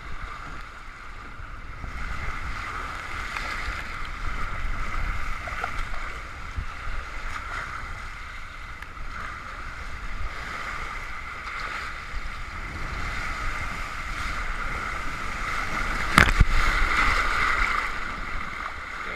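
Steady rush of moving water, with a sharp knock about sixteen seconds in followed by a couple of seconds of louder rushing.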